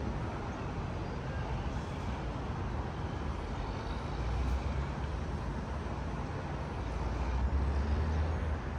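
Outdoor street ambience: a steady wash of road traffic noise, with a low rumble swelling about halfway through and again near the end.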